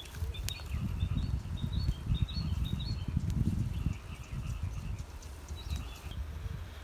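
Small birds chirping in short repeated calls over a low, uneven rumble that is loudest in the first half, with a few sharp clicks as sticks are shifted on a small wood fire.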